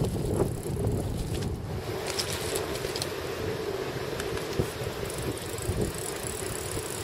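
Wind buffeting the microphone: an uneven low rumble, over a steady low hum.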